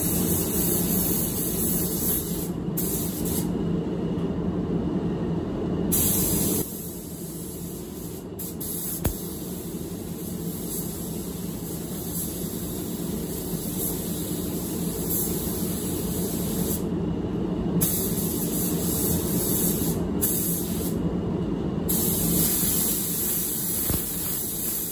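Gravity-feed spray gun hissing as it lays silver metallic paint on a car fender, in several long passes broken by short pauses between trigger pulls, over a steady low rumble.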